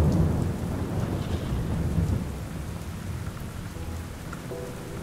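A low roll of thunder over steady rain, the rumble easing off after about two seconds and leaving the rain hiss. A few faint held tones come in near the end.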